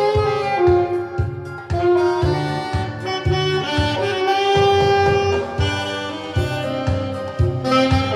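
Saxophone playing a legato melody of held notes, with a rhythmic bass accompaniment underneath.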